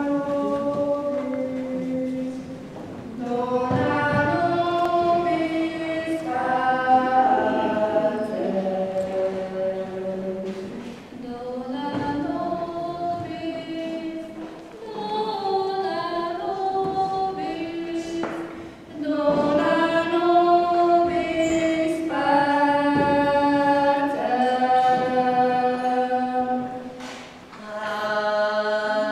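Women's choir singing a cappella, several voices in sustained notes, in phrases separated by brief pauses.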